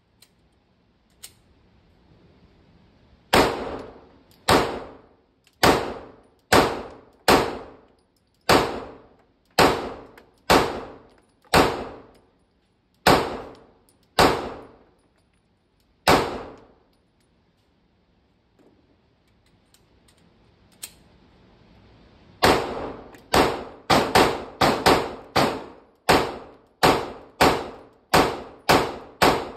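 Glock pistol fired in an indoor shooting range: a slow string of about thirteen shots roughly a second apart, then after a pause a faster string of about seventeen shots, each shot ringing off the range walls.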